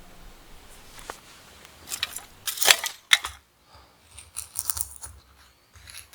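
Light metal clinking and clattering as hard parts are handled. There is a single click about a second in, a louder cluster of clanks between two and three seconds in, then lighter scattered clicks.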